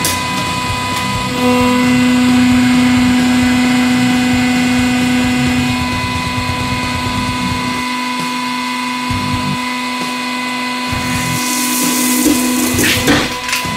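Hydraulic press pump motor running with a steady hum, as the guillotine blade of the press comes down. Near the end a few sharp cracks as the blade bites into a bundle of orange rods.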